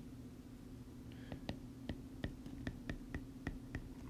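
Stylus clicking and tapping on a tablet screen during handwriting: a quick run of about ten sharp clicks, roughly three or four a second, over a low steady hum.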